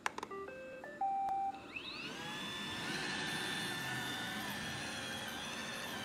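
iRobot Roomba robot vacuum started with a press of its Clean button: a click, then a short start-up tune of stepped beeps ending on a longer, louder tone. About two seconds in, its motors spin up with a rising whine and settle into a steady high-pitched whir.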